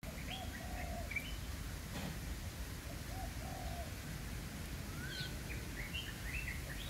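Birds calling: a dove cooing in short repeated phrases, a group about every three seconds, with higher, quicker chirps from other birds, over a steady low rumble.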